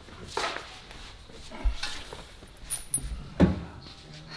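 A chrome front bumper being carried and offered up to a car's nose: a few separate knocks and clunks as it is handled, the loudest about three and a half seconds in, with a brief high squeak about halfway through.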